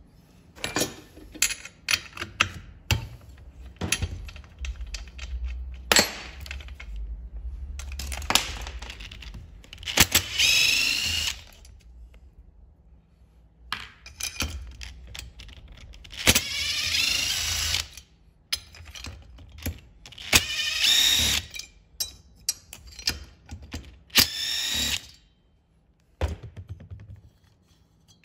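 Power screwdriver whirring in four short bursts, backing out the cylinder screws of a Husqvarna 252RX brushcutter's two-stroke engine so the cylinder can come off. Metal tools and small parts click and knock in between.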